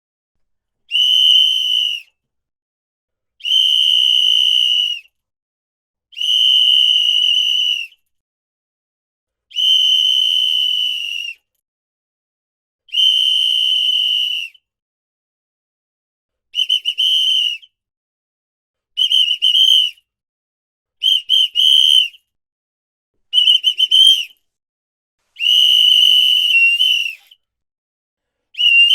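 A hand-blown whistle sounding a series of blasts on one steady high pitch, with silent gaps between them. First come five long blasts of about a second and a half each, then four shorter broken, fluttering blasts, then a longer blast near the end.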